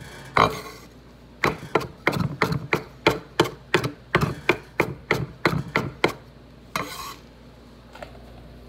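Chef's knife chopping fresh parsley on a wooden cutting board: a steady run of sharp knocks, about three a second. A short scrape follows about seven seconds in.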